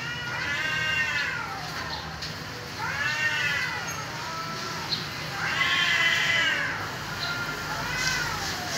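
Cats caterwauling in courtship: four long yowls, each rising and then falling in pitch.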